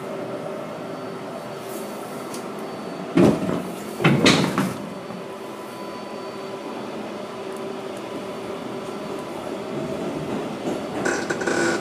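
Steady hum of a standing R142A subway car. Its sliding doors shut with two loud thumps about a second apart, a few seconds in. Near the end the running noise rises as the train starts to move.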